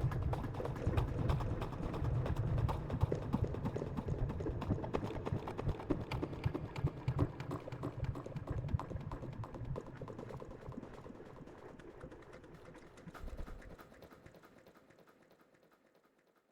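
Coffee-making sounds chopped into a dense stream of short clicks and knocks over a low rumble by a granular effect (Arturia Efx Fragments). The texture thins and fades away over the last several seconds, with a brief swell shortly before it dies out.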